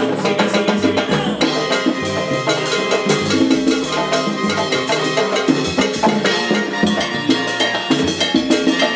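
Live salsa band playing at full volume, with busy percussion and drums over a moving bass line.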